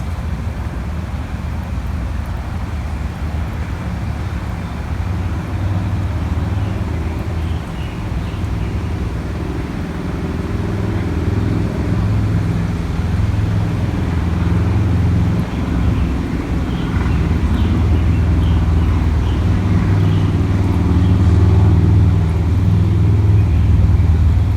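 A motor vehicle running: a steady low rumble with a faint engine hum, growing somewhat louder over the last several seconds.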